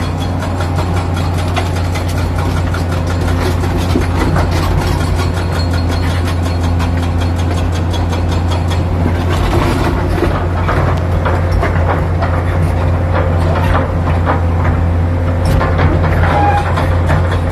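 Komatsu PC200-7 excavator's six-cylinder diesel engine running steadily with a low drone, with many short clicks and knocks over it, more of them in the second half.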